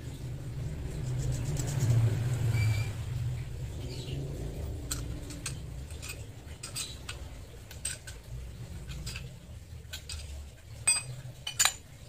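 A few sharp metal clinks, loudest near the end, over a low steady rumble that swells briefly about two seconds in.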